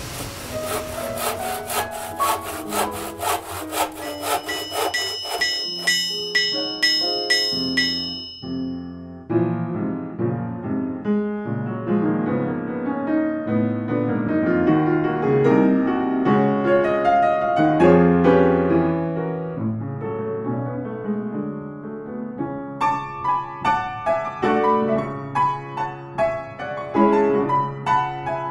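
Slow solo piano background music. It is preceded for the first several seconds by an even run of rapid clicks with a few high ringing tones, which fade out as the piano comes in.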